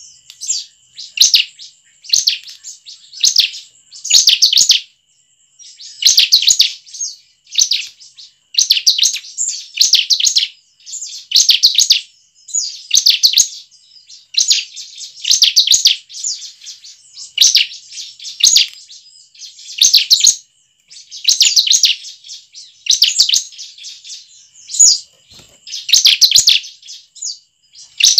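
Bar-winged prinia (ciblek) calling: short bursts of rapid, sharp, high chips, repeated about every second to second and a half, with a faint steady high tone underneath.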